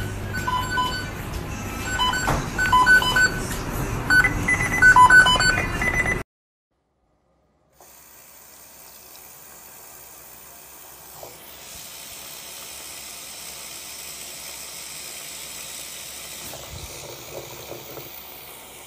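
Music with short beeping tones for about six seconds, then a brief silence, then a bathroom sink tap running in a steady stream.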